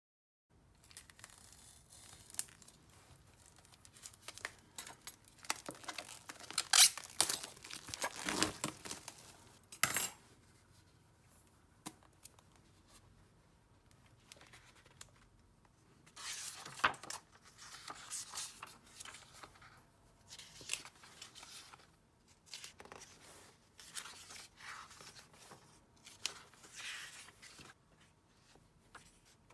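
Packaging on a Moleskine hardcover notebook being cut with a knife and torn off with a crinkling rustle, loudest about seven to ten seconds in. After a quieter pause, the cover is opened and the paper pages are turned with shorter rustles and flicks.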